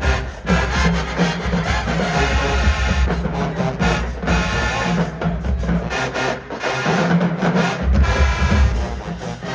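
HBCU marching band playing live, brass over heavy bass drums, the lowest bass dropping out for about a second in the second half.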